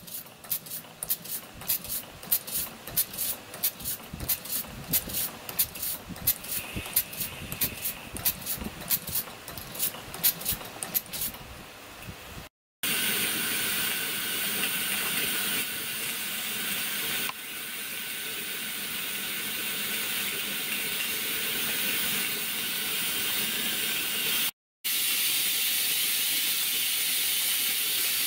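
Live-steam miniature locomotive in steam: for about the first twelve seconds a rapid, irregular run of sharp clicks, then a steady, loud hiss of escaping steam.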